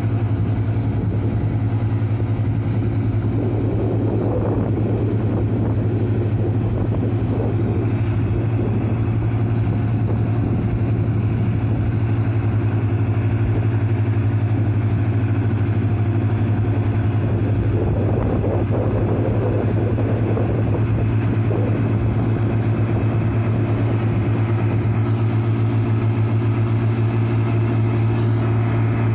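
Ford tractor's diesel engine running steadily as the tracked tractor works a flooded rice paddy, a deep even drone that the owner likens to a rice-mill engine. A rougher, noisier stretch comes in twice, about four seconds in and again around eighteen seconds.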